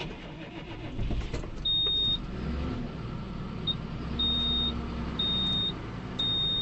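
Modern John Deere tractor's diesel engine running, heard from inside the cab; it gets louder about a second in and lifts in pitch briefly. A high-pitched cab warning beeper sounds about once a second over it, one of the tractor's alerts about the engine.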